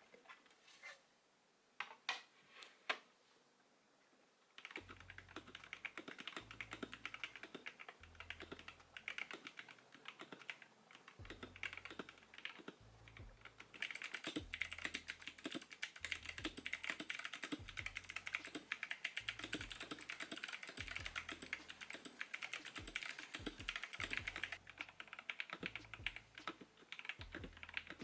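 Hexgears Soda68 mechanical keyboard with Kailh BOX "Soda" switches and PBT keycaps being typed on fast, a steady clatter of key clicks after a few single keystrokes at the start. From about halfway the clatter turns louder and brighter for about ten seconds, then returns to the softer sound.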